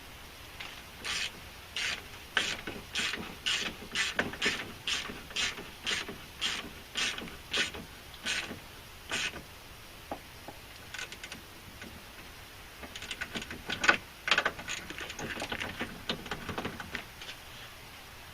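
Hand socket ratchet clicking in short back-and-forth strokes, about two a second, as a bolt is run in. After a pause come irregular ratcheting clicks and clanks, with one sharp metal knock about two thirds of the way through.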